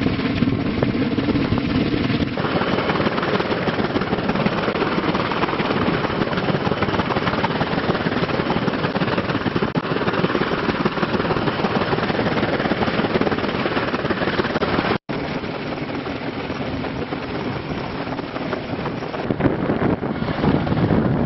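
Kaman K-MAX intermeshing-rotor helicopter hovering, its rotors and turbine making a loud, steady noise. The sound drops out for an instant about two-thirds of the way through.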